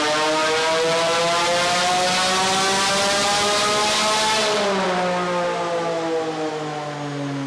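Porsche 718 Cayman GT4 RS's 4.0-litre flat-six, breathing through a Fi-Exhaust catless downpipe and valved muffler, pulling on a dyno: loud, the revs climbing steadily under load, then the throttle lifts about four and a half seconds in and the revs fall away.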